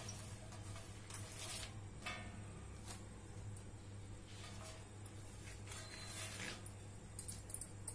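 Quiet kitchen room tone with a steady low hum, a few faint soft rustles and, near the end, several small clicks.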